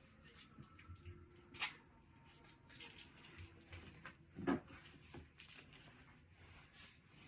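Faint rustling and handling of craft materials while a gift basket is put together, with a sharp click about one and a half seconds in and a duller knock a few seconds later.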